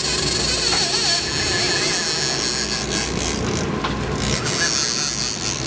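Fishing boat's engine running steadily, with a hiss of wind and water over it.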